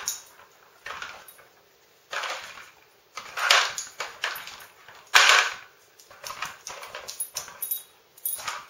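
A dog working a stacked plastic treat-puzzle toy (Nina Ottosson Dog Tornado) with its nose. There are four separate noisy bursts of sniffing and plastic scraping in the first half, then a quicker run of lighter plastic clicks and knocks near the end.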